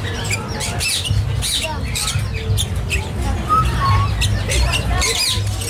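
Caged lovebirds chattering: many short, shrill squawks and chirps in quick succession, over a steady low hum.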